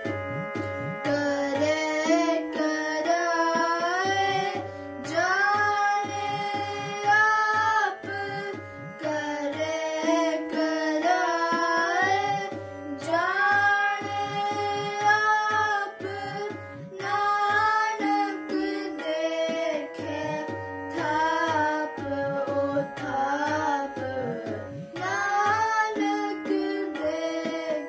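Two children singing a Sikh kirtan hymn together, starting about a second in, over a steady harmonium drone and a regular drum beat.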